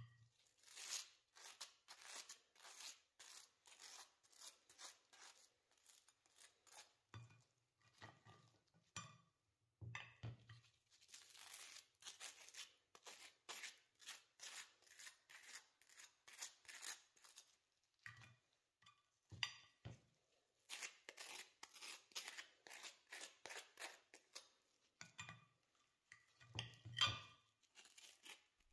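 Butter knife scraping butter across crisp, dry toast in quick repeated strokes, several a second, with a few soft low knocks in between.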